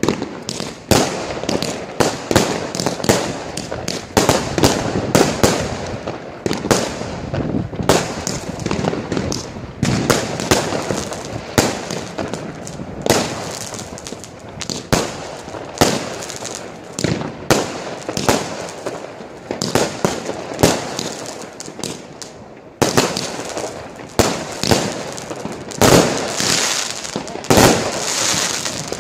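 A Pyromoravia Galaxy 52 firework cake, 52 shots from 25 mm tubes, firing in quick succession: about two sharp shots and bursts a second, with a brief lull near the end before it picks up again.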